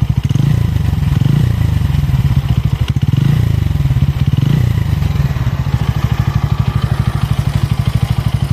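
Bajaj Pulsar N160's single-cylinder engine running, swelling twice in the first half and then holding steady. It runs with a rougher sound that the owner says appeared after the first service at 500 km and whose cause is unknown.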